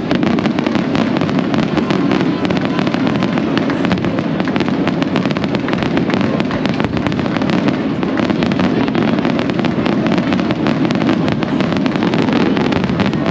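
Aerial fireworks going off in a dense, continuous barrage: rapid crackling pops layered over a steady low rumble of bursts, with no let-up.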